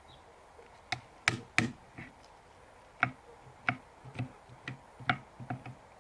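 About a dozen sharp knocks and taps at irregular intervals, beginning about a second in.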